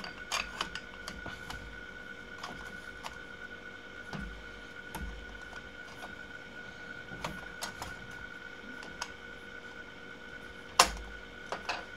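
Light clicks and taps of a metal preamp case panel being handled and slid into place on the chassis, with one louder knock near the end.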